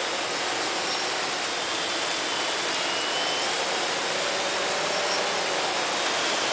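Cheerson CX-20 quadcopter hovering low, its propellers giving a steady whir with a faint whine that wavers slightly in pitch as the throttle corrects, mixed with wind rushing over the microphone.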